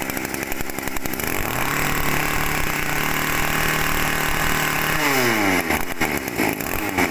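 Small two-stroke brush cutter engine running. It revs up to a steady higher speed about a second and a half in, holds there, then drops back down about five seconds in as the throttle is let off.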